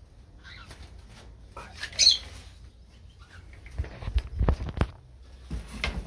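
Goldfinches chirping a few times, the sharpest call about two seconds in, then a quick cluster of knocks and rustles about four seconds in.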